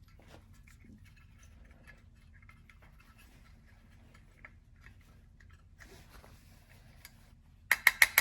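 Small metal carburetor parts and hand tools being handled during a float-drop adjustment: faint scattered clicks and taps, then near the end a sudden rapid run of loud, sharp metallic clicks, several a second.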